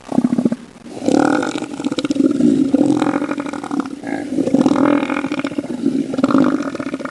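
Elephant seal calling: a short bellow, then about a second in a long, rattling, rapidly pulsed bellow that lasts some six seconds, swelling and dipping in loudness.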